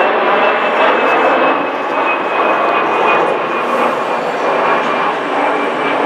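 Jet engines of a Germanwings Airbus A320-family twin-jet climbing out after takeoff: a loud, steady rushing roar with a faint high whine that slowly sinks in pitch, easing slightly toward the end.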